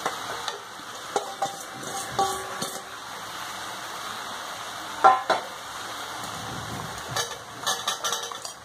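Steel ladle scraping and clinking against a metal kadhai as chopped cluster beans are stirred, over a light sizzle of frying. Scattered knocks, the loudest about five seconds in, and a run of clatters near the end as cut potato pieces go into the pan.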